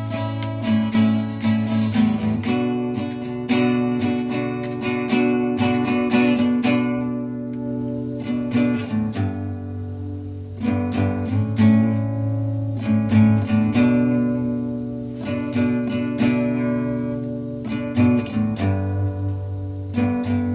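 Acoustic guitar strummed, chords ringing on between the strokes. The strumming thins out to a few softer strokes for a couple of seconds midway, then picks up again.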